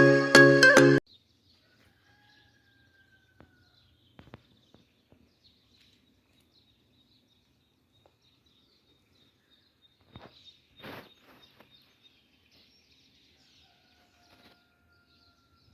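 Music cuts off about a second in, then quiet ambience: a few faint, long, slightly falling whistled bird calls, a few soft knocks, and a brief rustling noise near the middle.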